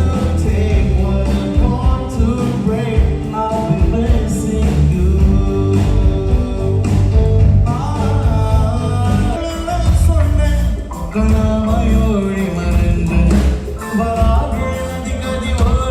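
A band playing a song with a singer's voice over it, with heavy bass and drums.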